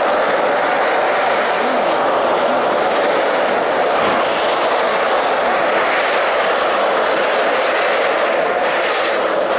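Several ice-racing cars on studded tyres sliding through an icy, snow-covered corner: a loud, steady rush of tyre and motor noise with no clear engine note.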